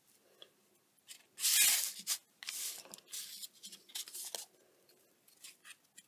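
Scissors cutting a short piece of decorative ribbon: one longer cut about a second and a half in, then several shorter snips and rustles of the ribbon.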